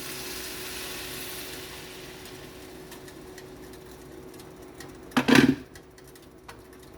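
Chicken sizzling in a pot of hot oil and curry, the sizzle fading over the first couple of seconds, under a steady low hum. About five seconds in, a short loud clatter of cookware.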